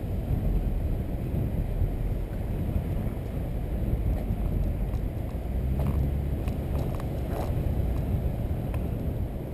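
A car driving slowly, its engine and tyres making a steady low rumble, with some wind noise on the microphone and a few faint clicks past the middle.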